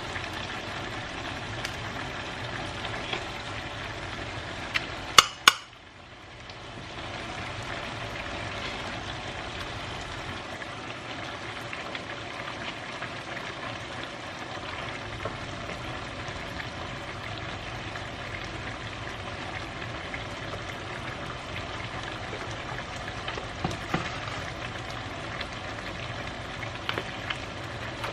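Food sizzling steadily in a frying pan on the stove, with a few loud, sharp knocks about five seconds in, after which the sizzle briefly dips.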